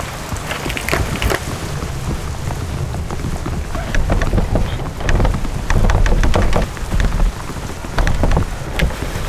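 Rain falling, with many scattered drops and a steady low rumble underneath.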